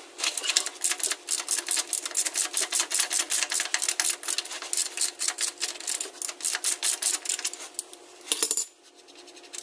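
Socket ratchet clicking rapidly as it backs out the fill plug on a Jeep transfer case. The clicks stop a little before the end, with a short scrape as the plug is spun out by hand.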